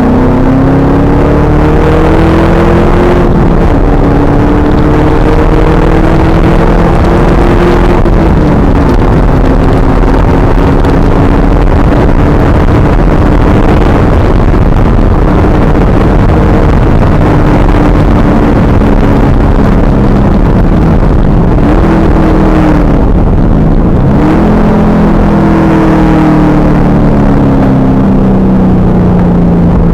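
2000 Pontiac Trans Am Firehawk's V8 pulling hard on track. The engine note climbs and drops back at upshifts a few seconds in and again about eight seconds in, then falls and dips around twenty-two seconds before climbing again. It is heard through loud, distorted wind noise on the on-board camera.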